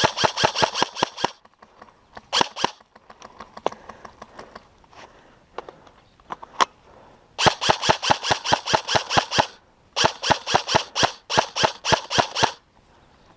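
Airsoft guns firing on full auto, sharp rapid clicks at about ten shots a second. One burst at the start and a short one soon after, a few single shots in between, then several long bursts from about seven seconds in to near the end.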